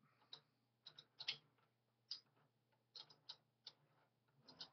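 The bare, partly reassembled mechanism of an old Singer 27 sewing machine being turned by hand, its shafts, cams and linkages giving faint, irregular metal clicks and ticks as it starts to turn.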